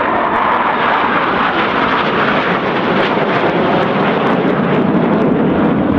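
Engine noise from a formation of KAI T-50B Golden Eagle jets flying past, a steady rush that drops lower in pitch over the last couple of seconds as they pass.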